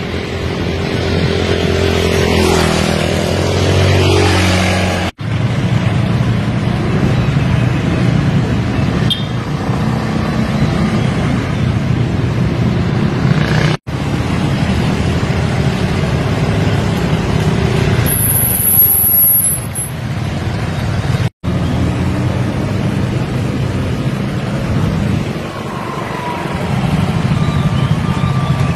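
Road traffic: motor scooter and car engines running and passing, with three brief dropouts.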